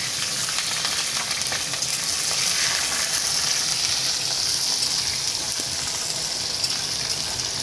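Sliced onion frying in hot oil in a metal kadai: a steady sizzling hiss with fine crackling, while a flat spatula stirs it.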